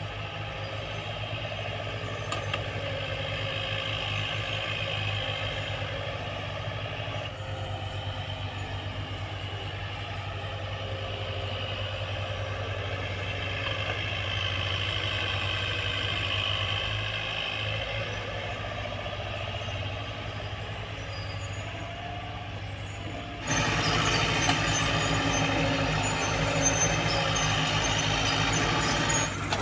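Diesel engine of heavy earthmoving equipment running steadily under work, with a low rhythmic firing pulse. Late on it abruptly gets louder and harsher.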